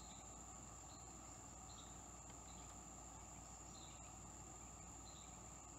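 Near silence with a faint, steady high-pitched insect drone and soft short chirps every second or so.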